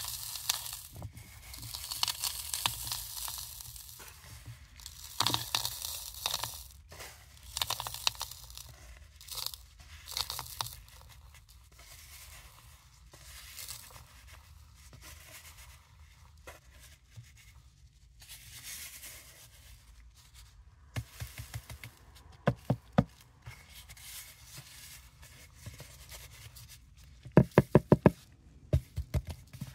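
Crushed mothball powder pouring and sliding in a plastic tub, a grainy hiss that comes in bursts. Near the end come two runs of sharp light taps.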